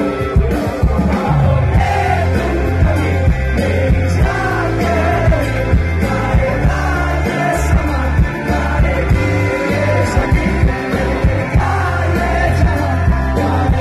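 Live rock band playing: a voice singing a melody over acoustic and electric guitars and bass guitar, with a steady beat in the low end.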